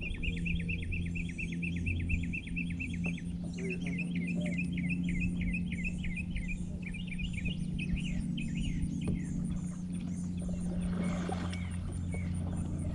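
A songbird singing long runs of quick repeated chirps, about six a second, with a short break partway and a looser, uneven stretch before it stops about nine seconds in. A steady low hum runs underneath throughout.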